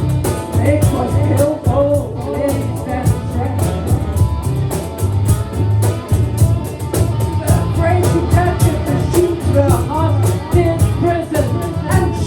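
Live psychedelic rock band playing. Drums keep a steady beat over a pulsing bass line, with a wavering lead melody above.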